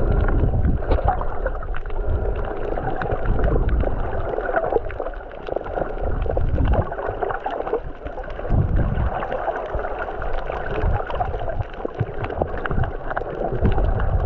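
Underwater sound picked up by a GoPro camera in its waterproof housing: a muffled, churning rumble of moving water with gurgling and small crackles, swelling and easing as the camera moves through the water.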